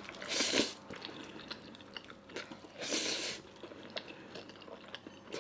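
Close-miked chewing and biting of food, with small wet mouth clicks and two short louder noisy bursts, about half a second and three seconds in.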